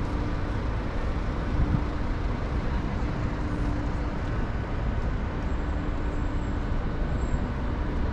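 Steady city traffic noise: an even hum of engines and tyres with a low rumble, and a faint low drone that fades in and out.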